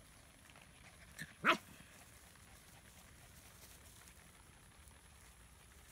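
German Shepherd puppy giving one short, sharp bark about a second and a half in, just after a fainter little yip, while puppies play-wrestle.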